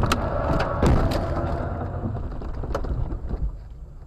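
Road crash heard from inside a car: a string of sharp impacts and clattering over loud road noise, the heaviest hit about a second in, dying away after about three seconds.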